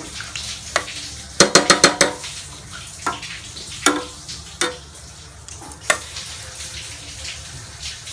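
A metal spoon stirring pork adobo in a stainless steel pot, clinking and knocking against the pot: a quick run of clinks about a second and a half in, then single knocks every second or so. Beneath it the browned pork sizzles in the little water just added.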